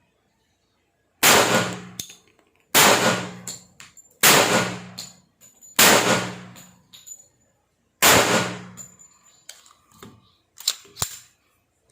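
Five shots from a Glock 21 pistol in .45 ACP, fired about a second and a half apart with a slightly longer pause before the last, each ringing out for about a second. A few small clicks follow near the end.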